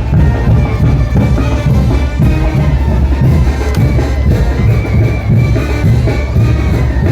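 Mexican brass band (banda) playing a son de chinelo, with a steady drum beat under the melody.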